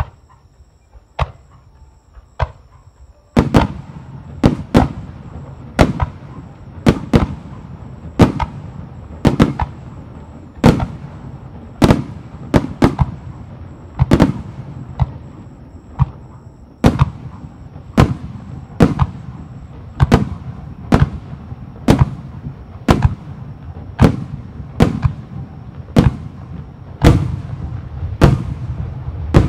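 Star mine barrage of aerial firework shells bursting overhead. A few separate bangs come first, then from about three seconds in a steady run of loud bursts roughly one a second, with a constant rumble between them.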